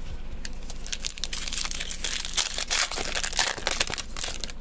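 Foil wrapper of a Magic: The Gathering booster pack being torn open and crinkled by hand: a run of irregular crackling rustles starting about a second in.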